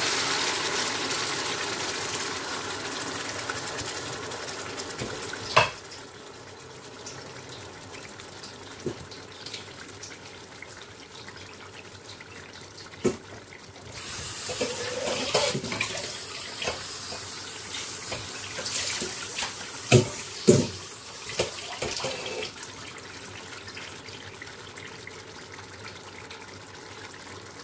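Tomato puree hitting hot oil and fried onions in a stainless pot, sizzling loudly at first and dying down over several seconds, then the sauce bubbling with a softer hiss. A few sharp knocks come through, the loudest two close together about two-thirds of the way in.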